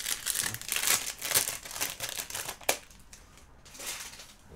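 Thin plastic LEGO parts bags being torn open and crinkled by hand. A dense crackling runs for about the first two and a half seconds and ends in a sharp snap, then fainter rustling follows.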